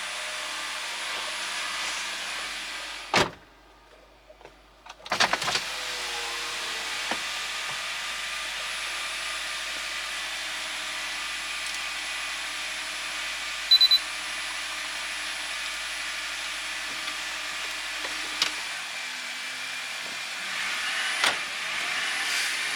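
A 2013 Honda Civic Hybrid running steadily just after being started, with a short high beep about fourteen seconds in. It runs without the bearing noise that came from its old CVT.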